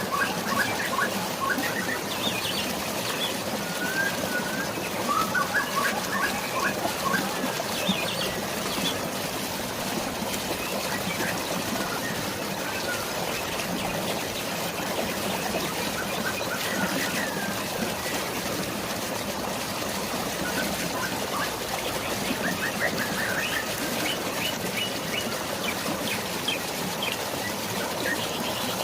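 Steady rush of rain and flowing water, with birds chirping in short scattered bursts over it, most in the first several seconds and again in the second half.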